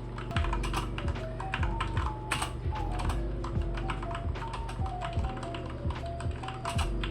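Typing on a Gigabyte Aorus K1 mechanical keyboard with Cherry MX Red linear switches: a quick, irregular run of key clacks, over background music.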